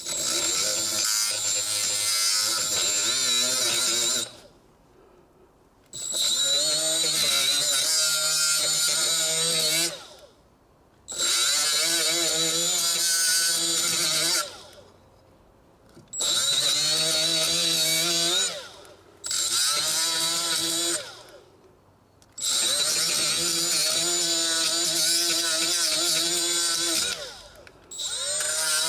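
Milwaukee M12 Fuel angled die grinder on speed 1, about 10,000 RPM, with a coarse brown Scotch-Brite Roloc pad scrubbing rust off a wheel hub. It runs in bursts of a few seconds with short pauses, a high motor whine over a rough scrubbing sound, starting and stopping about six times.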